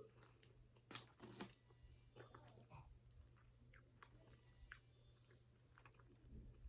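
A person chewing food close to the microphone: faint, irregular wet mouth clicks and soft bites.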